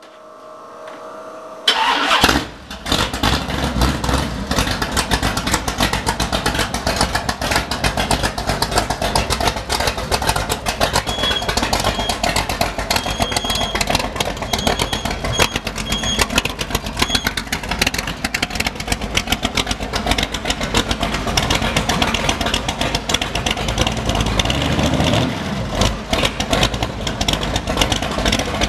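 Boss Hoss motorcycle's 502-cubic-inch (8.2 L) Chevrolet big-block V8 fires up about two seconds in, then runs steadily at idle.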